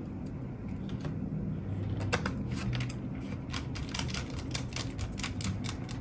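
Light clicks and taps, several a second from about two seconds in, from small plastic and metal parts inside an open laptop being handled during reassembly, over a steady low hum.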